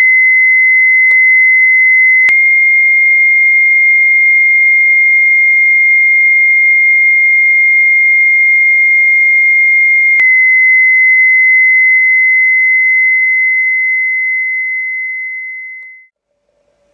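A loud, steady, high-pitched tone. It jumps slightly up in pitch with a click a couple of seconds in, drops back with another click about eight seconds later, and then fades out.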